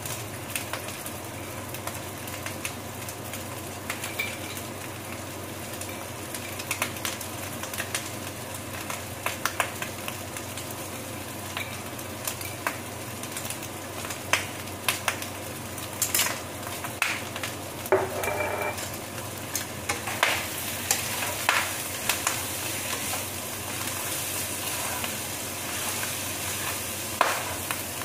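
Pork pieces frying in a pan: a steady sizzle with scattered clicks and taps of a utensil against a glass jar. About two-thirds of the way through the sizzle grows louder as a wooden spatula stirs the pork.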